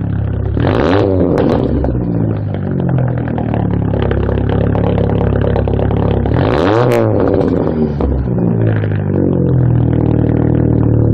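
Straight-piped Chevrolet Cobalt's four-cylinder engine idling through its open exhaust, blipped twice: a quick rev about a second in and a higher one just past the middle, each rising and falling straight back to idle.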